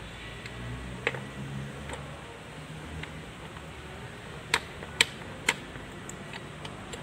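Sharp clicks from hands working at the open gearbox of a Kubota B6001 tractor transmission: one about a second in, then three louder ones about half a second apart past the middle, with a few faint ticks after. A low steady hum runs underneath.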